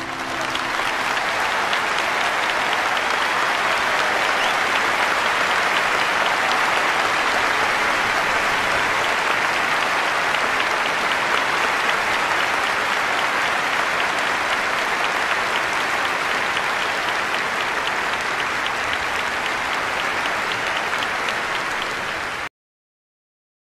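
A crowd applauding steadily, a dense sustained clapping that cuts off abruptly near the end.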